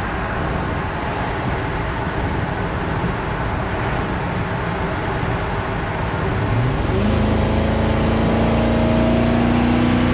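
Steady road and engine noise from a 1964 Ford F100 swapped to a Crown Victoria 4.6 V8. About two-thirds of the way in, the engine note rises sharply as the truck accelerates, then holds and climbs slowly while it pulls.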